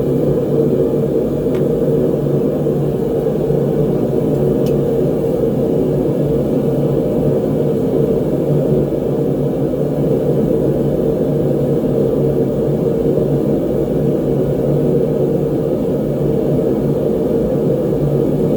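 Gas forge burner running steadily, a dense, even low rush with no break.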